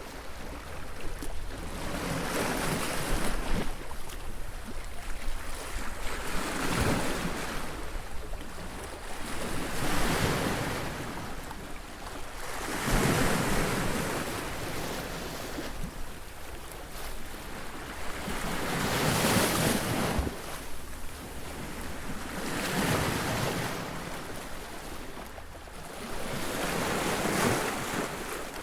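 Ocean surf breaking on a beach: waves crash and wash back one after another, in swells of noise every few seconds.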